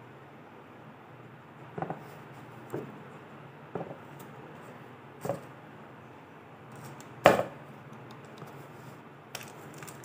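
Cardboard smartwatch box being handled, giving six dull knocks and taps, the loudest about seven seconds in.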